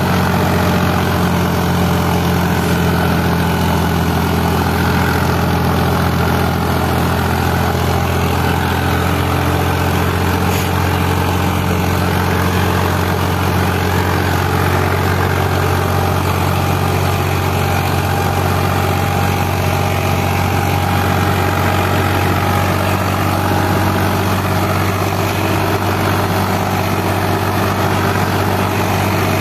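Indo Farm tractor's diesel engine running steadily under load while pulling a disc harrow through soil.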